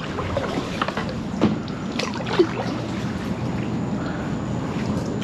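Kayak paddle strokes, the blades splashing and water trickling off them, with a couple of sharp knocks about one and a half and two seconds in.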